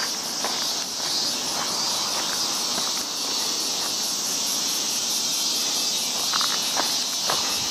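Outdoor insect chorus: a steady high-pitched shrill with a fast, even pulsing above it. A few soft footsteps on a dirt path come near the end.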